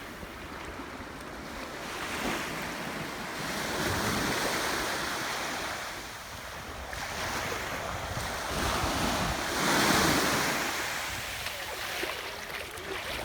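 Ocean surf breaking on a beach, the noise of the waves swelling and falling back every few seconds, with wind buffeting the microphone. The loudest wave comes about ten seconds in.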